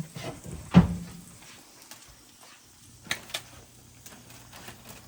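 Kitchen handling noise: a knock just under a second in, then two quick snips of scissors about three seconds in.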